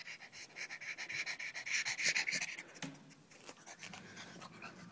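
Pug panting close up, in quick short breaths that fade out about three seconds in.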